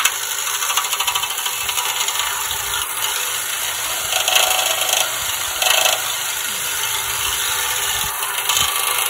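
A drill spinning a dryer vent brush fitted with string trimmer line inside a 1968 Corvette's steel frame rail: the whirling line scrapes and slaps the inside wall in a fast, even clatter, knocking loose rust and scale from inside the frame.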